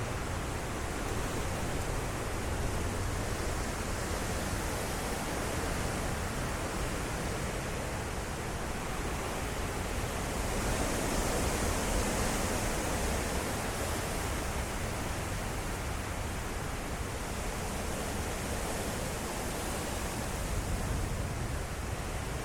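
Derecho winds blowing hard and steadily, a stronger gust swelling up about halfway through.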